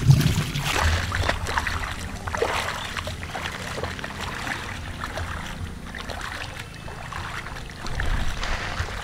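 Water splashing and sloshing in irregular strokes as someone moves through a shallow backwater channel, over a low rumble; a little louder at the start and again near the end.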